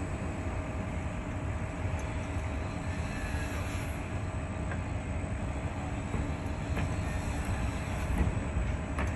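Steady construction machinery running: a continuous low rumble with a constant hum-like tone over it.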